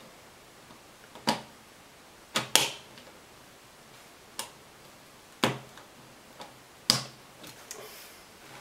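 Test leads and probes being handled against the meter and a mains source: about half a dozen sharp, irregular plastic-and-metal clicks and taps, including a quick pair about two and a half seconds in.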